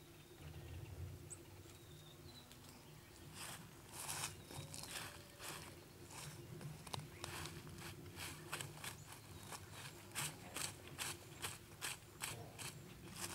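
Hens pecking and scratching at frosty ground: a run of short, crisp crunching ticks that starts a few seconds in and grows more regular, about two or three a second, near the end.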